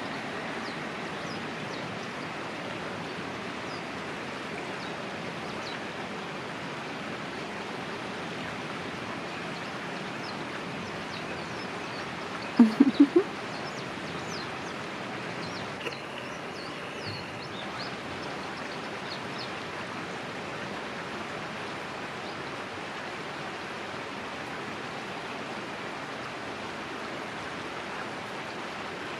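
Steady outdoor rushing noise, like running water or wind, with faint short high bird chirps scattered through it. About twelve and a half seconds in, four quick loud sounds come in a burst.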